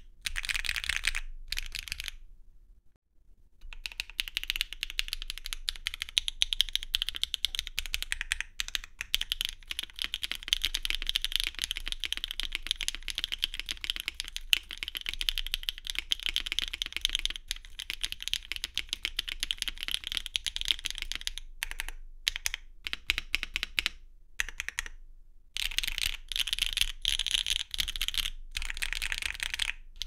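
Fast typing on a Neo65 mechanical keyboard with Sillyworks x HMX Hyacinth V2U linear switches, a carbon fiber plate, no foam and Cherry-profile double-shot ABS keycaps. The board is gasket-mounted at first; after a short silence about three seconds in, the same board is heard O-ring-mounted. Near the end the presses come more sparsely with short pauses.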